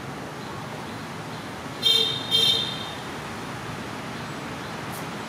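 A vehicle horn toots twice in quick succession, two short beeps about half a second apart, over a steady background hiss.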